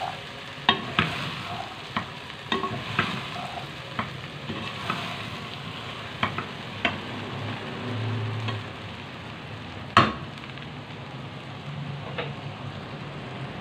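Okra frying with a steady sizzle in an aluminium saucepan while a wooden spatula stirs it. The spatula knocks against the pot many times, with one louder knock about ten seconds in.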